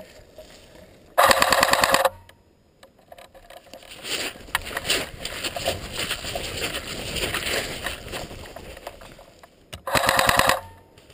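Two short full-auto bursts from an airsoft electric gun, rapid evenly spaced shots lasting under a second each, the first about a second in and the second near the end. Quieter irregular rustling in between.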